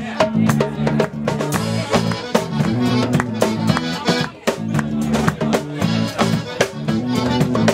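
A folk band playing live: melodeon carrying the tune over a tuba bass line, with guitar and a steady beat from the drum kit.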